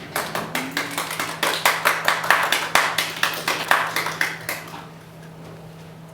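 Scattered hand clapping from a few people, irregular sharp claps that thin out and stop after about four and a half seconds.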